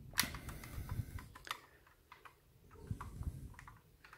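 Small irregular clicks and taps of hands working the removable metal hood off a 1/18-scale diecast model truck, with a few soft low knocks of the model being handled.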